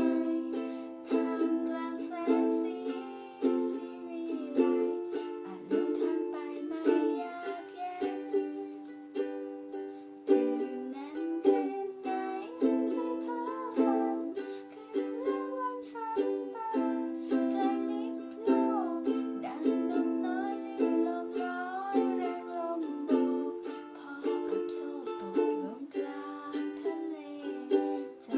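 Ukulele strummed in a steady rhythm of chords, playing a song.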